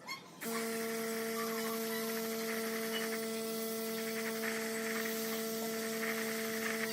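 A small electric motor starts about half a second in and runs at a steady speed with an even hum.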